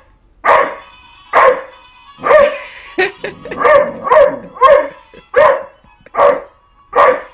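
Doberman puppy howling along to music: about ten short, pitched yelping howls, roughly one a second. A faint electronic tune from a toy music wand plays beneath.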